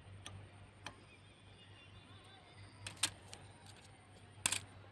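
Light metallic clicks of a diesel engine's piston oil ring being handled against the piston and cylinder bore as its fit is checked. The sharpest click comes about three seconds in and a short cluster near the end, over a faint steady hum.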